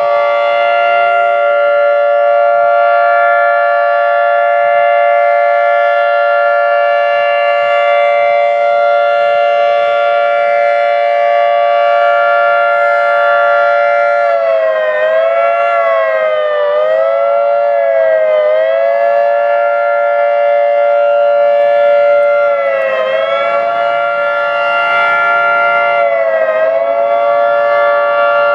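Federal Signal 3T22 outdoor warning siren sounding a loud, steady two-note tone. About halfway through, the pitch starts dipping and swinging back up in quick, unevenly timed swoops, several in a row, then holds steady again before more swoops. This is a rough fast-wail signal made by hand on the siren's test button.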